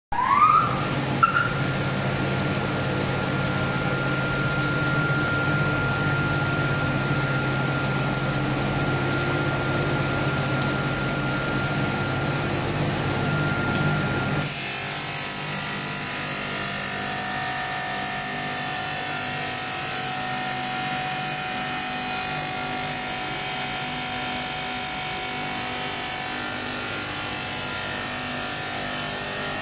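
Two-spindle automatic wet tile cutter starting up: a rising motor whine that settles into a steady high whine over an electric-motor hum, with a click about a second in. About halfway through, the sound changes abruptly to a slightly quieter hum and hiss as the multi-blade spindles cut ceramic tile into strips under water spray.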